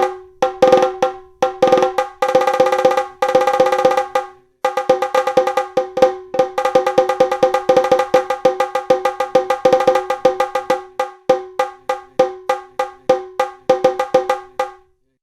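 Sampled pitched percussion from the SwarPlug 4 Indian-instrument plugin, playing a rhythmic pattern of quick ringing strokes on the same few pitches. There is a fast roll of strokes about two to four seconds in, a brief break, then steady strokes until it stops just before the end.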